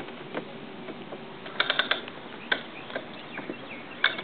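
Irregular metallic clicking from a hand winch's ratchet pawl and handle: a quick run of clicks about a second and a half in, then single clicks.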